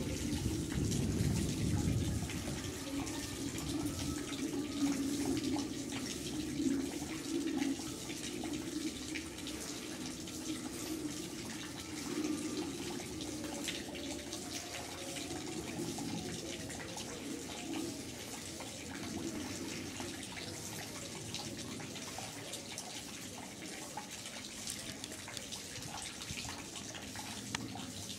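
Steady wash of running, splashing water with small drip-like ticks, a little louder in the first few seconds.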